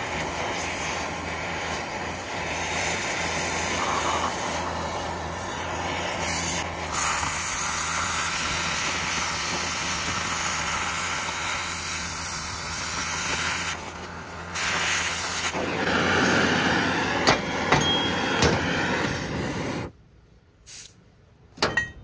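Oxy-fuel cutting torch hissing steadily as it cuts a circular hole through a steel bracket plate, with a brief dip about two-thirds through. The torch cuts off suddenly about two seconds before the end, followed by a couple of light metal clicks.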